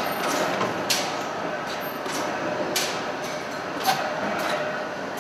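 A few sharp metallic strikes, irregularly spaced about a second apart, over a steady hum of factory machinery: a forging hammer working a red-hot steel spade blank between its dies.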